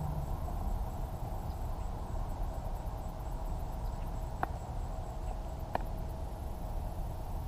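Steady low outdoor rumble and hiss, broken past the middle by two sharp clicks about a second and a half apart.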